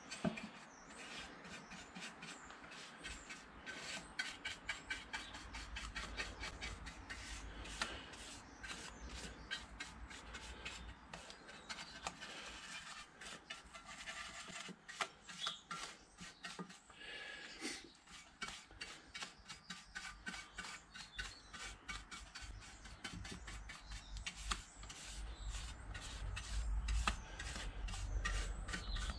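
A paintbrush rapidly stroking liquid rust converter onto a metal exhaust heat shield, in quick repeated rubbing strokes.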